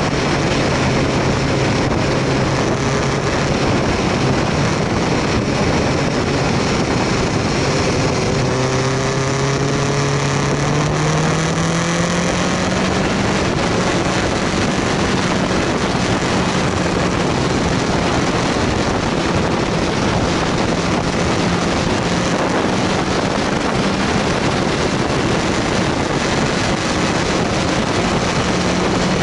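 BMW S1000R's inline-four engine running under way, its note rising as the bike accelerates about ten seconds in and then holding higher, under steady wind and road noise on a side-mounted action camera.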